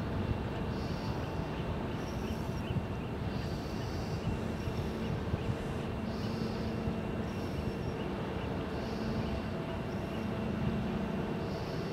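Steady low mechanical rumble with a faint high whine and a soft hiss that comes and goes every second or so: a large ship's engines and machinery running.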